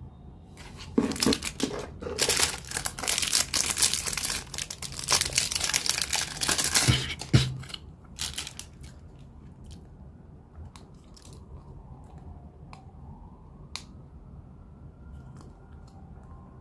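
Plastic packaging crinkling and tearing as it is opened by hand, in a busy stretch from about a second in until about seven seconds, then only scattered light clicks and rustles of handling.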